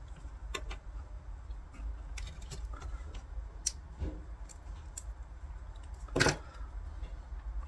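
Scattered small clicks and taps of objects being handled on a work surface, with one louder knock about six seconds in, over a steady low hum.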